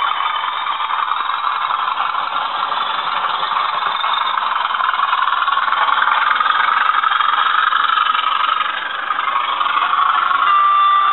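Class 20 diesel engine soundtrack from LokSound V4 sound decoders, played through the small speakers of two double-headed Bachmann model locomotives as they run: a steady engine note, thin and without deep bass. The sound dips briefly a little before nine seconds in, and a few steady tones join it near the end.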